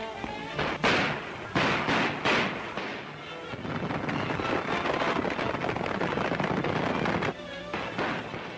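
Gunshots from an old film soundtrack, about four sharp cracks within the first two and a half seconds, followed by a dense clatter of horses galloping, over background music.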